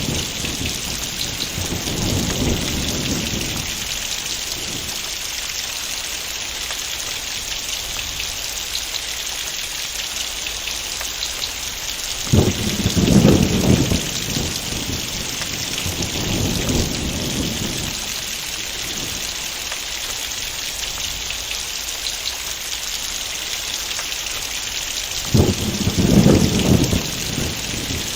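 Heavy rain hissing steadily, with rolls of thunder: a rumble dying away in the first few seconds, a sudden clap about twelve seconds in that rolls on for several seconds, and another sudden roll a few seconds before the end.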